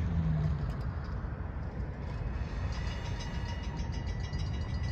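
Diesel locomotives of an unseen train running with a low, steady engine rumble; faint high steady tones come in about halfway through.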